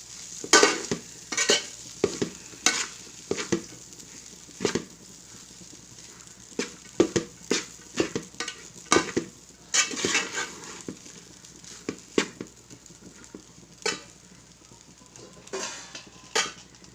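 Spatula stirring and tossing fried rice in a frying pan, knocking and scraping against the pan at an irregular pace over a faint sizzle.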